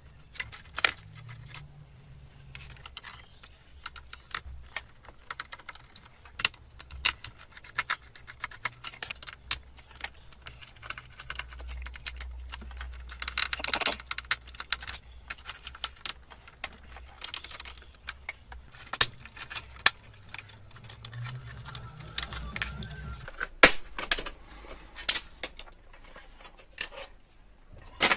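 Irregular clicks, taps and rattles of plastic and metal as a PlayStation 4 Slim console is taken apart by hand, its screws and case panels coming loose, over a faint low hum.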